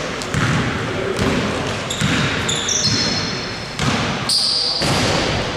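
Basketball bouncing on a hardwood gym floor as it is dribbled, about one bounce a second, with sneakers squeaking on the court in the second half. Voices sound in the background.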